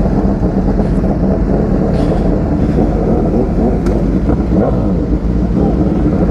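Motorcycle engines running, a dense steady sound, with the engine pitch rising and falling a few times in the second half.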